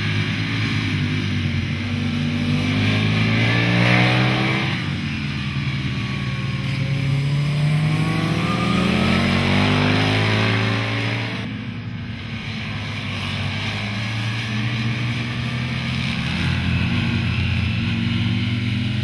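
Aprilia Tuono 1000 R Factory's V-twin engine running hard on a race track. Its pitch rises and falls with throttle and gear changes, and it is loudest about four seconds in.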